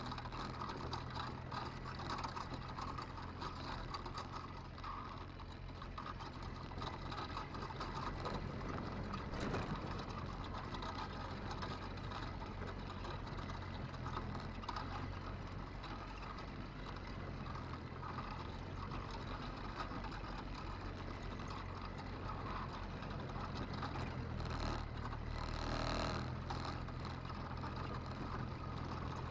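A vehicle's engine running with a steady low hum, with constant rattling and clatter over it.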